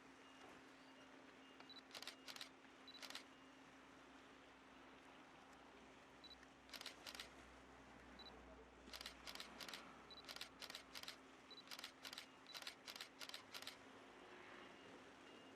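Faint sharp clicks over a low steady hum: a few scattered ones, then a quick run of about three a second in the second half.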